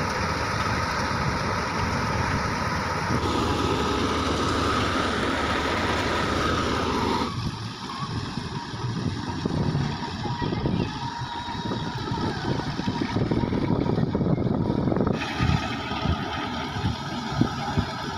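Tractor-driven thresher running steadily while threshing dry berseem: a constant machine drone over the tractor's engine, with a steady whine in it. About seven seconds in the sound changes abruptly, becoming fainter and more uneven, and it shifts again about fifteen seconds in.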